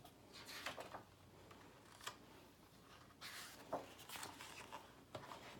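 Faint rustling of the paper pages of a picture book being handled and turned, in several short bursts.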